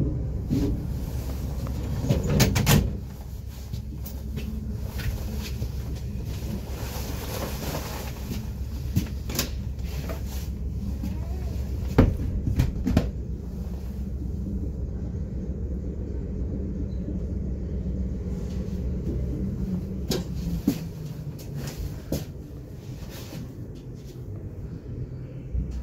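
Class 455 electric multiple unit heard from inside its rear cab, running slowly over points into a terminus platform: a low rumble with scattered clicks and clunks, loudest in the first three seconds. The rumble dies away about twenty seconds in as the train comes to a stop.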